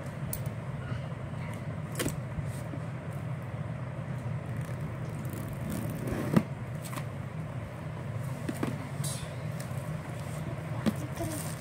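Steady low background rumble with a few short taps and clicks from hands handling a plastic-wrapped cardboard box, the loudest about six seconds in.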